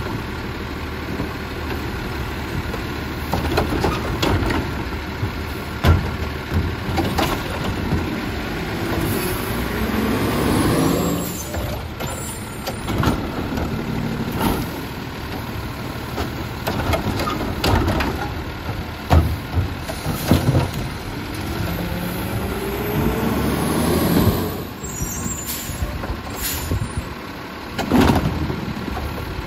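Heil MultiTask side-loader garbage truck's diesel engine running while its automated arm lifts and dumps carts, with a rising hydraulic whine and engine rev twice for the lifts. Sharp bangs and knocks of the carts and arm come in between.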